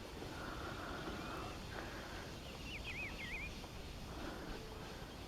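A bird calling with a short, quick run of wavering high chirps about three seconds in, over a low outdoor background hum and wind.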